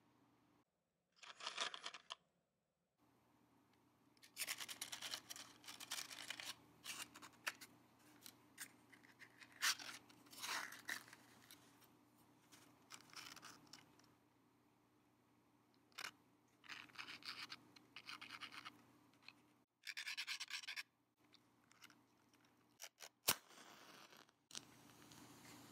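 Wooden matches handled in their cardboard matchbox, rattling and scratching in many short bursts. Near the end a match is struck with one sharp scratch, followed by a soft hiss.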